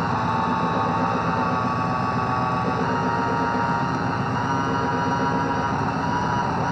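Two circuit-bent electronic instruments, a homemade noise circuit and a Casio keyboard rewired to a different voltage path, sounding together through a homemade mixer: a steady, dense, noisy electronic drone with high tones that shift every second or two.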